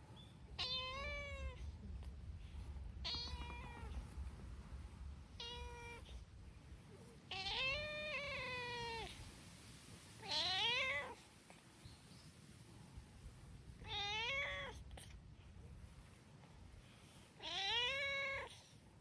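Brown tabby-and-white cats meowing: seven high, clear meows a few seconds apart, the fourth one the longest.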